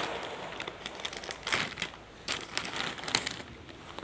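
Shipping packaging being pulled open by hand, crinkling and crackling irregularly with scattered sharp clicks.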